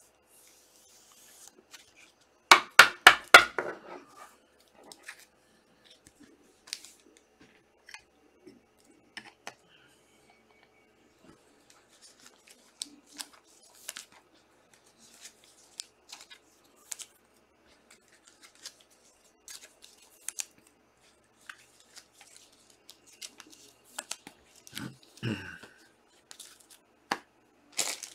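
Trading cards and their packs being handled and sorted by hand, with scattered soft clicks and rustles. About two and a half seconds in comes a quick run of about four sharp clicks. Near the end there is a denser rustle.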